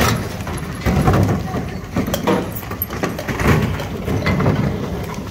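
Street riot din: shouting voices mixed with scattered sharp bangs and clatter, in irregular surges.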